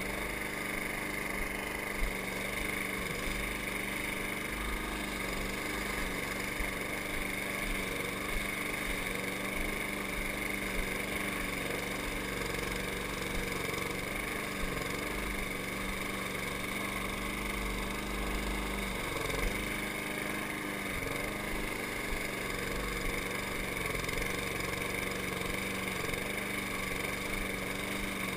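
Gas walk-behind lawn mower engine running steadily while cutting grass, its pitch dipping briefly a few times under load.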